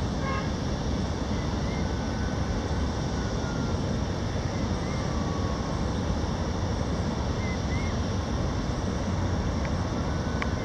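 Steady low outdoor roar with no change in level, broken by a few faint short chirps.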